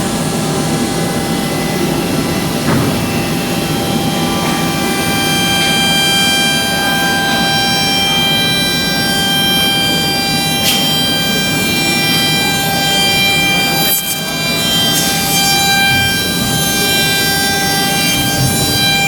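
CNC machining centre running, a steady multi-tone spindle whine over cutting noise, with a few brief sharp ticks.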